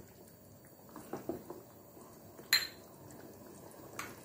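Spoon stirring chickpea curry in a pan: a few soft wet knocks, then a sharp ringing clink of metal on the pan about two and a half seconds in, and a lighter clink near the end.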